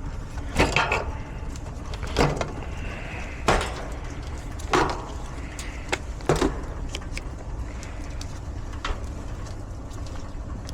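Five short clatters and rattles, roughly one every second or so over the first six seconds, then a few fainter ticks: hands working wires and tools in an AC condenser's control panel. A steady low rumble runs underneath.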